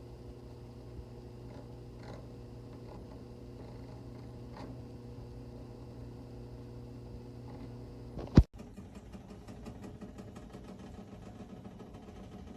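Steady electric hum of a running appliance motor with a few faint clicks. About eight seconds in a sharp loud click cuts it off, and faint rapid ticking follows.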